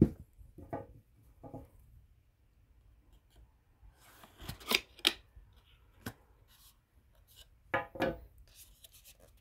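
Rigid cardboard Chanel perfume box knocked down onto the table at the start. Later comes a few sharp scrapes and rustles of card as the outer box is opened.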